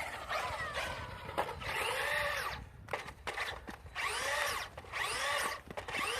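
Brushless electric motor of a Traxxas Maxx 4S RC truck whining in several short throttle bursts, each rising and then falling in pitch.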